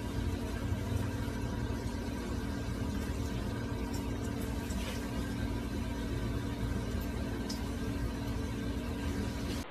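A steady mechanical hum and hiss, with a few faint clicks, that cuts off abruptly at the very end.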